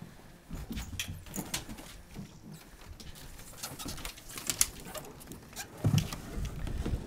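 A dog's paws and claws clicking and scuffling on a boat's deck as it moves about, in scattered sharp taps, with a louder low thump about six seconds in.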